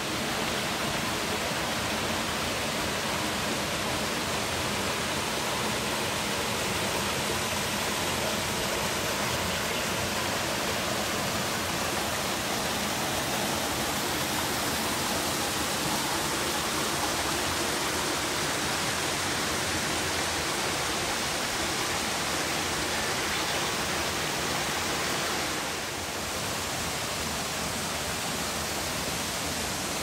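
Steady rushing of the Aosasa Kannon waterfall, a 22 m branching fall, with a slight dip in level about 26 seconds in.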